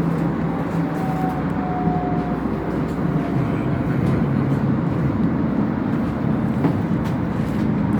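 Tram in motion: a steady low rumble, with a faint whine above it between about one and three seconds in.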